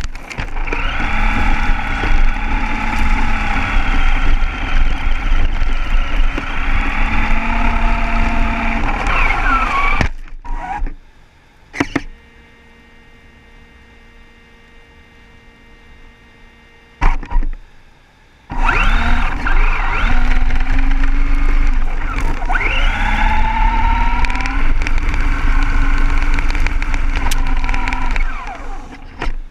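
Radio-controlled buggy's motor whining, its pitch rising and falling with speed, over rushing wind and tyre noise as it drives across sand. About ten seconds in it stops and goes quiet apart from a faint steady hum and a couple of short noises, then the whine picks up again for the last ten seconds.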